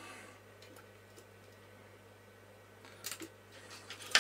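Small clicks and taps from a plastic project enclosure being handled on the workbench as a soldering iron is put to its switch: a couple of light clicks about three seconds in and a sharp, louder tap at the very end, over a faint low steady hum.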